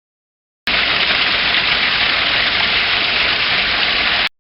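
Waterfall: a steady rush of falling water that starts abruptly under a second in and cuts off suddenly near the end.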